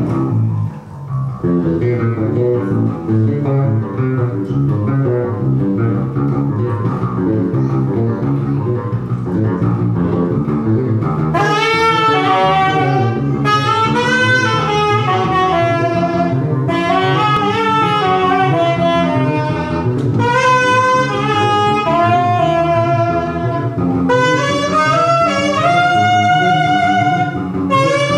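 Live improvised jazz: a busy bass line throughout, joined about eleven seconds in by a wind-instrument melody in rising and falling phrases.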